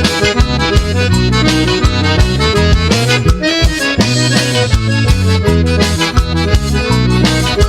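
Instrumental break of a gospel song, an accordion playing the lead over bass and steady drum hits, with no singing.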